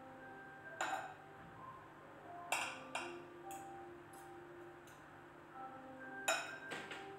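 Metal spoon clinking against the rim of a small saucepan of melted chocolate: several sharp, ringing clinks at uneven intervals, over faint background music.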